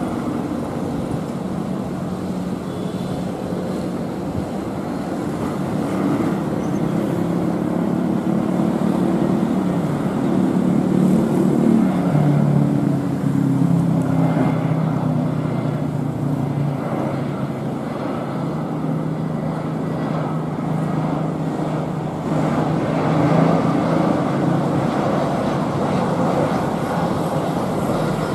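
Jet airliner on landing approach, its engines a steady rumble with a low drone that slowly drops in pitch around the middle.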